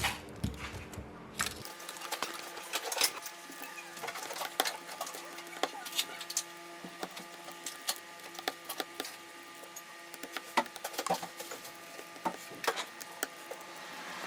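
Small screws being taken out of a Redmi smartphone's inner cover with a precision screwdriver: irregular light clicks and taps of the driver and the little screws on plastic and metal.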